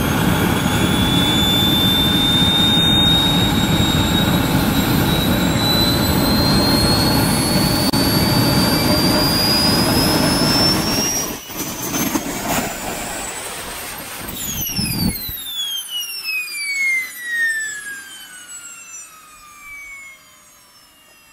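Swiwin 300 model jet turbine running with a loud roar and a high whine that climbs slowly as the rotor speeds up. About eleven seconds in the roar falters, and a few seconds later it stops. The whine then falls away steadily as the turbine spins down after shutdown.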